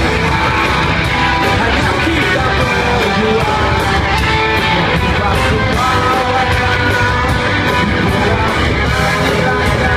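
Live rock band playing, with a singer over guitar and drums.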